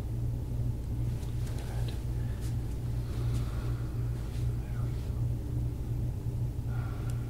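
A low, steady machine hum that swells and dips slightly at a regular pace, with a few faint clicks over it.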